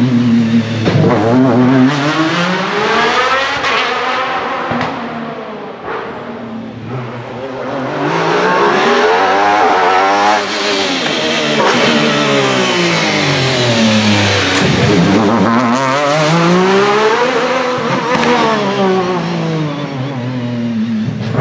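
The 1996 Alfa Romeo 155 V6 TI DTM touring car's V6 racing engine running hard, its pitch rising under acceleration and falling away as it slows, several times over.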